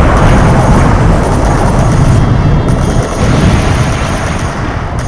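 Deep, loud rumble of an added explosion sound effect, slowly dying away, with sudden changes in the sound about two and five seconds in where the soundtrack is cut.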